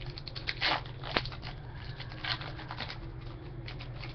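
Trading cards and their pack wrapper being handled by hand: a few short rustles and a sharp click about a second in.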